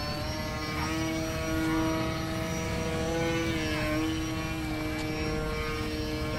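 Electric RC plane's Tower Pro 2408-21 brushless outrunner motor and propeller running in flight with a steady whine. The pitch wavers slightly, dipping and recovering about halfway through, over a low rumble.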